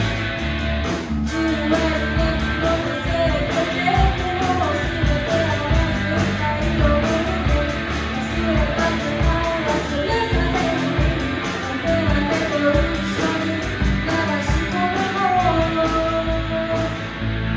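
Rock band playing live: a woman sings a wavering melody over electric guitars and a Tama drum kit keeping a steady beat.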